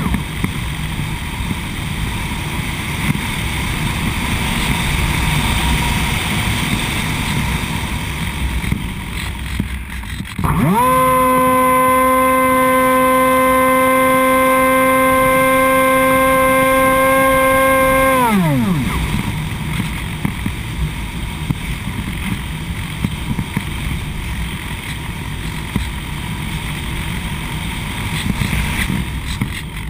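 Hawk Sky RC plane's electric motor and propeller in flight, with wind rushing past the wing-mounted camera. About ten seconds in, the motor whine climbs steeply to a steady high pitch as it is throttled up, holds for about eight seconds, then winds back down.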